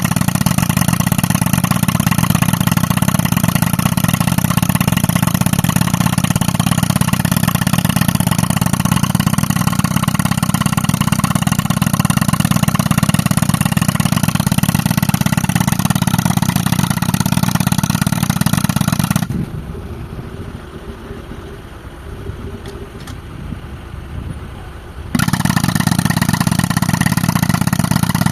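Pneumatic rock breaker, fed by a tractor-driven air compressor, hammering steadily on rock. About two-thirds of the way in it stops for roughly six seconds, leaving only the quieter engine running, then starts hammering again.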